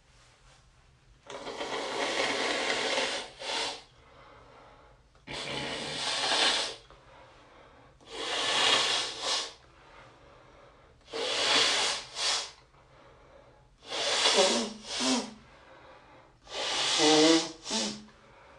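A person with a heavily congested nose blowing it hard. There are six forceful blows about every three seconds, each ending in a short second puff, and the last two break into a honking tone.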